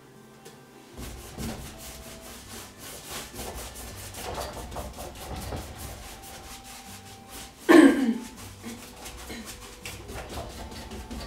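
Paintbrush scrubbing paint firmly across a stretched canvas: a run of quick, scratchy rubbing strokes. About eight seconds in there is one louder brief sound that falls in pitch.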